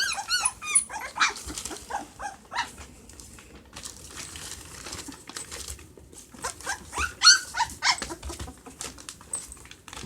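Week-and-a-half-old puppies whimpering and squeaking in runs of short, high-pitched cries. They come in bursts near the start and again about seven seconds in.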